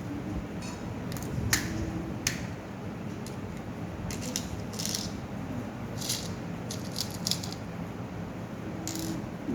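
Small metal nuts and bolts from a robotics kit clinking and rattling as they are picked out and handled, in scattered sharp clicks with a cluster of them in the middle.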